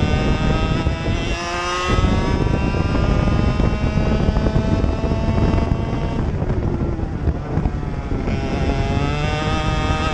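Racing kart engine at race pace, heard on board. There is a brief lift off the throttle about a second and a half in. The pitch then climbs steadily as the kart accelerates, falls as the throttle is lifted around six seconds in, and climbs again near the end.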